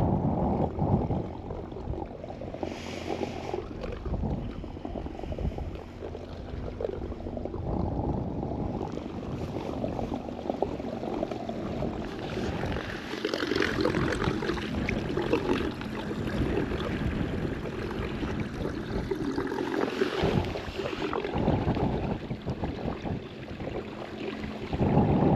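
Wind buffeting the microphone and choppy water against a kayak hull, with a steady low hum underneath from a side-mounted Watersnake TS24 24-lb-thrust electric trolling motor driving the kayak along.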